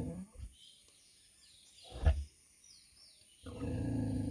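A 100 kg sow grunting in long, low, rough grunts: one ending just after the start and another beginning about three and a half seconds in, with a short, sharp, louder sound about two seconds in.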